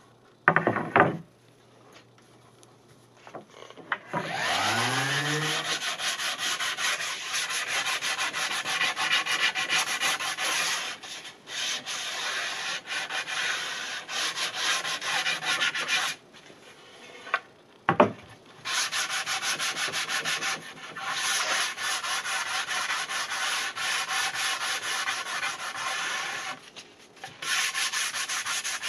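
Sandpaper rubbing over the wooden deck of a longboard: steady sanding that starts about four seconds in and pauses briefly twice.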